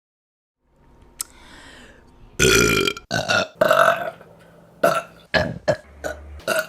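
A woman burping: one long, loud burp about two and a half seconds in, then a string of shorter burps.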